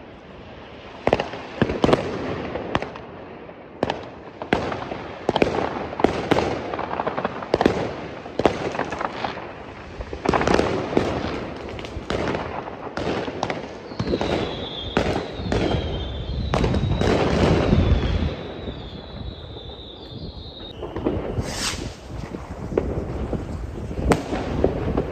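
New Year's fireworks and firecrackers going off all around: a dense, irregular run of sharp bangs and cracks. Past the middle, a wavering high whistle runs for about six seconds among the bangs.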